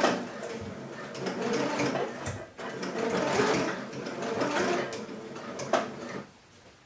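Electric sewing machine stitching in stretches, with a brief pause about two and a half seconds in. Near the end there is a sharp click, and then the machine stops.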